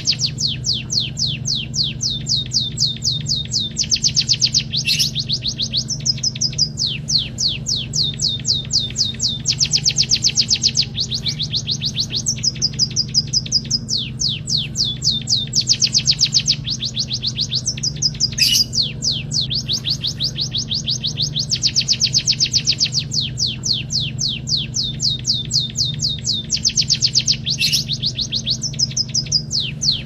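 White-headed munia (pipit haji) singing a canary-like song it has been taught: long runs of fast, high trilled notes, phrase after phrase with short breaks between them.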